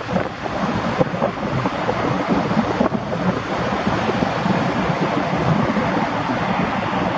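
Steady rushing noise of wind buffeting the microphone and choppy sea water, with a passing Boeing Jetfoil ferry's machinery running underneath it.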